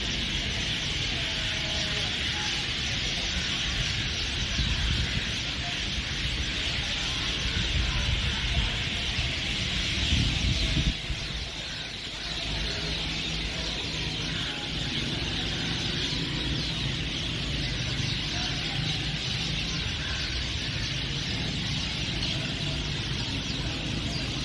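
Steady outdoor street ambience: an even hiss over a low rumble, with a brief dip in level about eleven seconds in.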